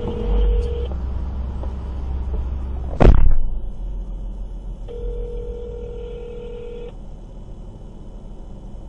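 Telephone ringback tone of an outgoing call ringing unanswered: a steady two-second ring at the start and another about five seconds in, over a low rumble inside a car. A single loud thump about three seconds in.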